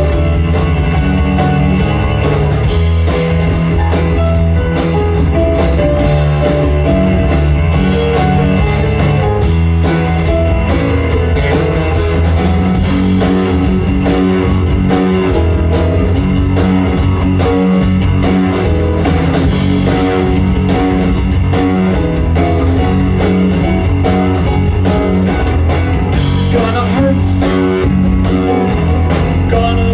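Live rock band playing, with electric guitar, electric bass, keyboard and drum kit.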